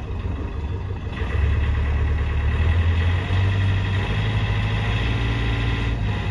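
Yanmar marine diesel engine running at low revs near idle. It grows louder about a second in and rises slightly in pitch about three seconds in.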